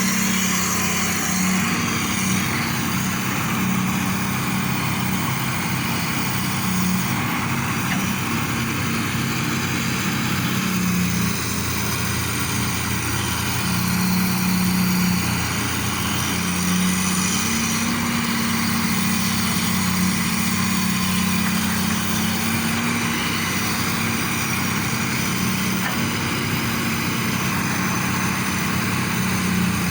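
Excavator's diesel engine running steadily, its note wavering slightly up and down.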